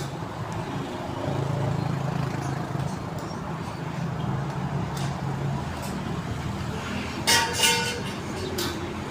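Steady low rumble of road traffic, with a short two-part toot of a vehicle horn about seven seconds in.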